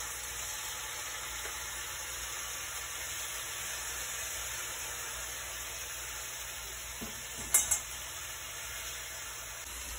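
Raw marinated chicken pieces sizzling steadily in hot olive oil in a skillet, just added to the pan. A short clatter about seven and a half seconds in.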